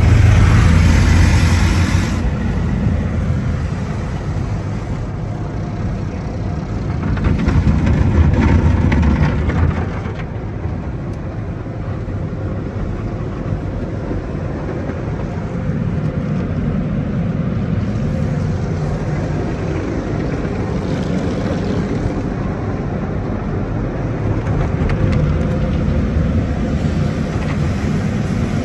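Tunnel car wash heard from inside the car: cloth wash strips rubbing over the body and glass, with water and foam spraying onto the windshield. It is louder near the start and again about eight seconds in, then settles to a steady wash.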